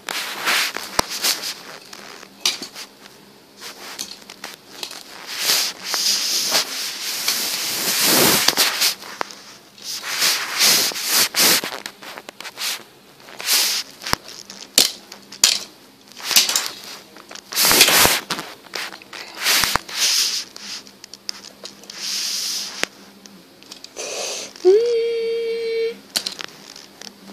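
Die-cast toy cars being knocked and crashed together on carpet, with repeated hissing, crashing bursts of noise between the sharp knocks. Near the end a single voiced tone rises and is held for about a second.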